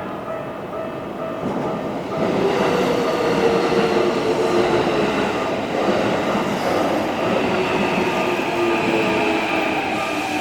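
Level crossing warning bell ringing in a steady repeating pattern as a Keikyu Airport Line electric train passes over the crossing from about two seconds in. The train's wheels rumble and its motors whine in a tone that slowly falls in pitch.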